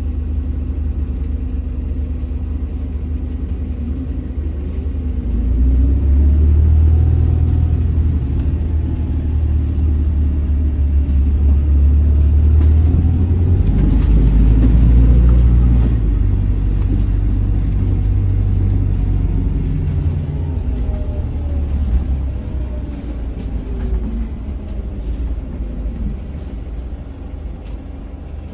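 Volvo 7900 LH diesel-electric hybrid articulated bus's diesel engine running at standstill with a low rumble. The rumble rises about five seconds in, stays strong until about sixteen seconds, then eases off and fades toward the end.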